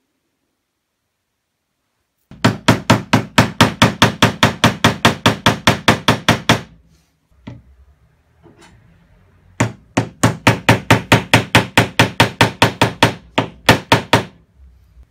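A soft-faced mallet striking a wooden block on a wooden board in rapid, even blows, about five or six a second. There are two runs of several seconds each, with a short pause between.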